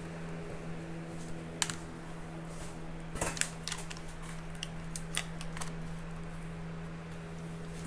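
Scattered light metallic clicks and taps of a 13 mm wrench working a bolt on the VR6 engine's timing chain guide, over a steady low background hum.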